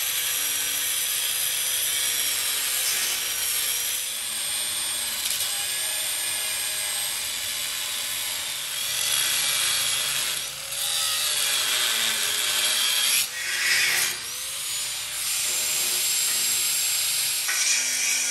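Handheld angle grinder grinding through the weld on a steel pipe spacer to cut it off a square-tube frame. The motor's high whine drifts up and down in pitch as the disc bites, and the grinding lets up briefly a couple of times.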